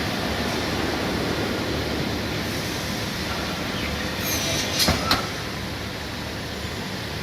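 SM 24 high-speed cross-cut saw running steadily, with a few sharp clacks about four to five seconds in as the machine works the wood.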